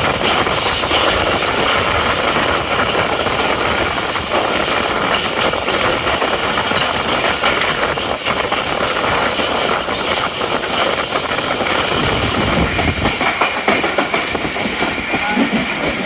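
Tezgam Express passenger train running along the line, a steady loud rush and rumble with the clatter of wheels on the rails.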